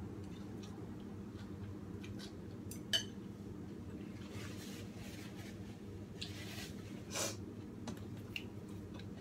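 Quiet eating at a table over a low steady hum: chopsticks and utensils clicking lightly against a ceramic bowl, with one sharper clink about three seconds in, and a few soft noisy mouth sounds of eating noodle soup.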